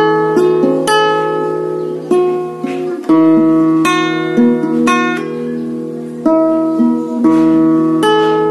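Yamaha C80 nylon-string classical guitar with a spruce top, played with chords struck one after another about once a second and left to ring over a steady low bass note.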